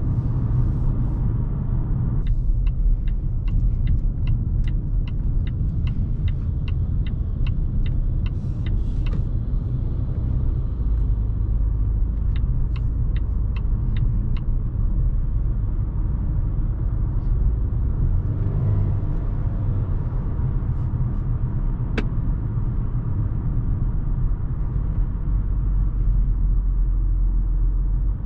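Cabin sound of a 2020 Volvo V60 T5 Cross Country driving: a steady low rumble of its 2.0-litre turbocharged four-cylinder engine and tyres on the road. A regular ticking, about three ticks a second, starts a couple of seconds in and lasts some six seconds, then comes back briefly for about two seconds; a single sharp click follows later.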